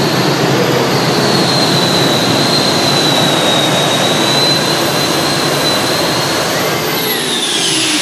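Loud, steady roar of a tractor-pulling engine with a high turbine whine over it; the whine falls in pitch near the end.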